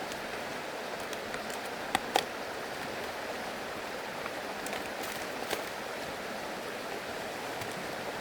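Steady hiss of water, with a couple of sharp ticks about two seconds in and another a little past halfway.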